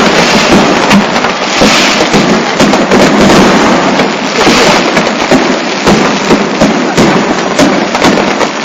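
Fireworks going off in quick succession: a dense, continuous crackling of many small bursts and pops.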